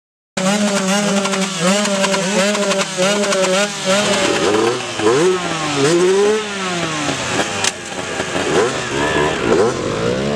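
Moped engine running at steady high revs for about four seconds, then revved up and down several times.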